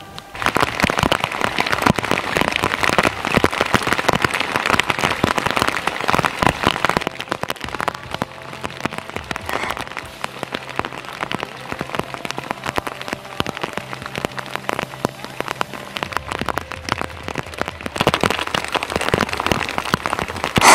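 Steady rain pattering on a lake surface, a dense crackle of drops. It is heaviest for the first several seconds and eases off a little after.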